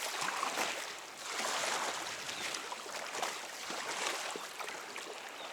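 Choppy sea water splashing and sloshing against a kayak's hull, a steady hiss that swells and eases every second or so.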